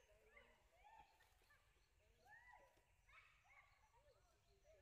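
Faint animal calls: many short, overlapping arched chirps and squeaks.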